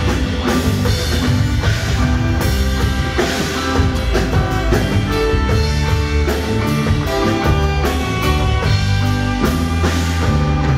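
A live rock band playing steadily, with drum kit and guitars.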